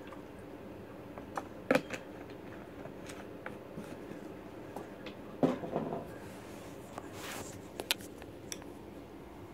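Handling noise from a phone being moved about: scattered knocks and short rubs, the loudest about two seconds in and again around five and a half seconds, over a steady low hum.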